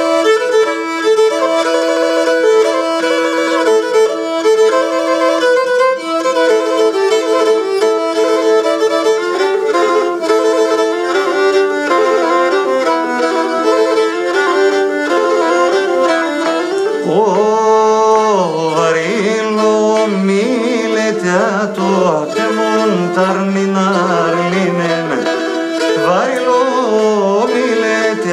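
Pontic lyra (kemenche) playing a folk melody, starting suddenly; from about seventeen seconds in the notes slide and bend more.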